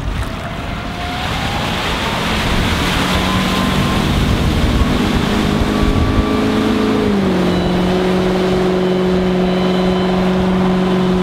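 2008 Rinker 230 Atlantic's Volvo Penta 5.0 GXi V8 sterndrive running at speed, its engine note rising as the boat accelerates onto the plane, then dropping slightly in pitch about seven seconds in as it passes by, over a steady rush of water and wind.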